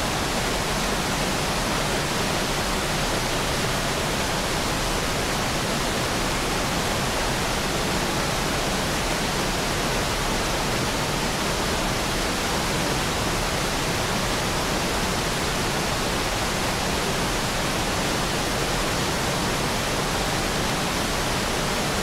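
Steady, even rush of water from Jacob Fork creek spilling over a small waterfall and boulder cascades.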